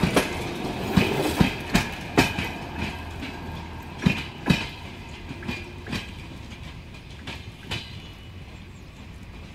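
Passenger coach wheels clacking over rail joints over a steady rumble as the last coaches of a passing train go by. The clacks come thick at first, a last loud pair follows about four seconds in as the tail coach passes, then the sound thins out and fades as the train moves away.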